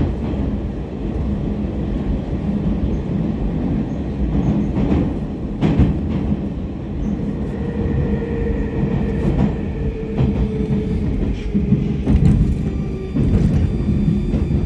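81-726.1 "Baltiets" metro car heard from inside while running through the tunnel: a steady low rumble of wheels on rail with scattered clicks. From about halfway through, a faint whine sets in and drifts slightly downward in pitch as the train slows for the station.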